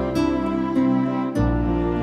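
Background music: slow, gentle new-age instrumental with plucked notes.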